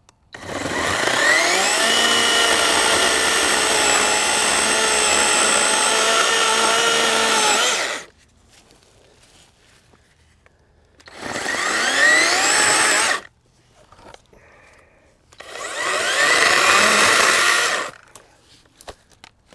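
Greenworks Digipro 40V brushless battery chainsaw cutting through a stump close to the ground in three runs: one of about eight seconds, then two of about two seconds. Each run whines up to speed at the start and stops abruptly when the trigger is released.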